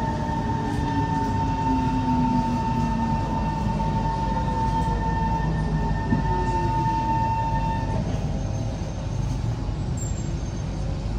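Kawasaki C151 MRT train braking into a station: the traction motors' whine slides down in pitch over several seconds, and a steady tone cuts out about eight seconds in as the train comes to a stop, leaving a lower steady hum.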